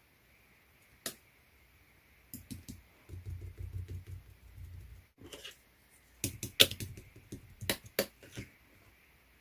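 Slime being pressed and squished by hand, giving off irregular sharp clicking pops, with a denser run of louder clicks in the second half.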